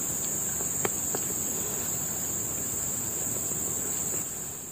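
Steady, high-pitched insect chorus, with two faint clicks about a second in.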